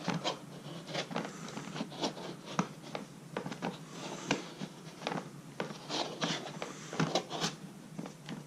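Irregular short scraping and clicking strokes, several a second, from a hard plastic RC truck bed being scrubbed clean of loosened paint.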